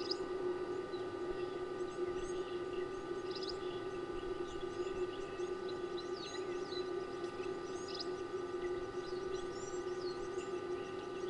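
Several birds chirping and calling in short, high chirps and quick runs of notes, scattered throughout, over a steady low hum with a few constant tones.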